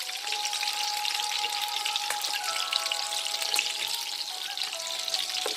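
Breadcrumbed chicken nuggets shallow-frying in hot oil over a raised flame: a steady, crackling sizzle. Soft background music plays underneath.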